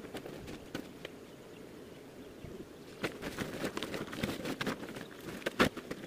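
A plastic tarp sheet rustling and crinkling as it is shaken out and folded, starting about three seconds in, with one sharp louder snap of the sheet near the end.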